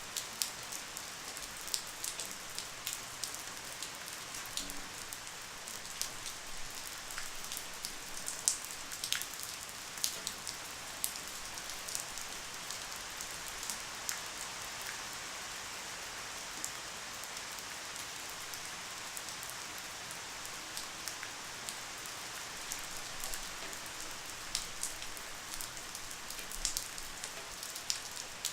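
Light rain falling steadily: an even high hiss with many scattered individual drops ticking on a surface.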